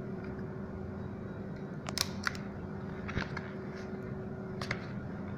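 A plastic opening pick prying around the edge of an Acer 8-inch tablet whose case is held only by clips: a few sharp clicks as the plastic clips let go, over a steady low hum.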